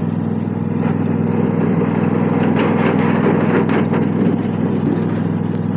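Riding lawn mower engine running steadily, with a few sharp clicks or rattles about halfway through.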